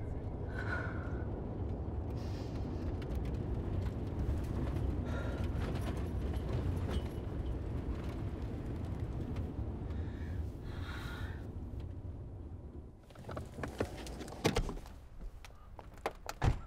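Steady low road and engine rumble inside a moving car. After about thirteen seconds it stops and a few sharp clicks and knocks follow as the car door is opened and shut.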